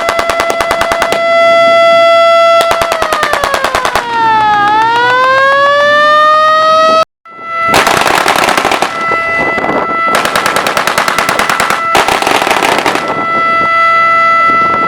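Air-raid siren sounding a steady tone that dips in pitch and climbs back, over rapid machine-gun fire. After a brief break about seven seconds in, louder, noisier bursts of gunfire come in over the held siren tone.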